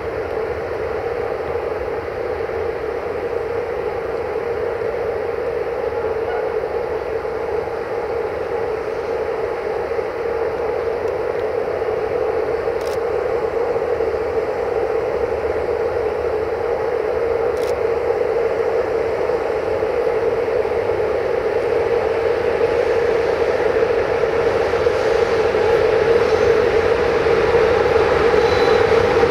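Electroputere LE5100 class 41 electric locomotive rolling slowly in at the head of a passenger train, giving a steady whirring drone with a humming tone that grows gradually louder as it draws near.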